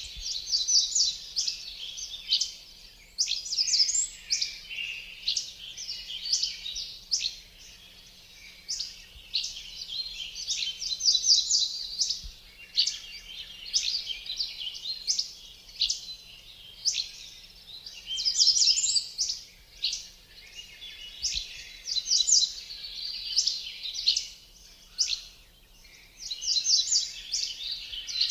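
Woodland birds singing in a continuous chorus: quick high chirps and trilled phrases, one after another about every second.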